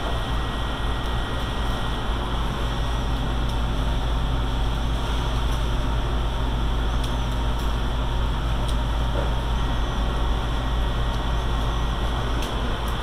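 Steady mechanical drone: a constant low rumble and hum with a hiss over it, with a few faint ticks.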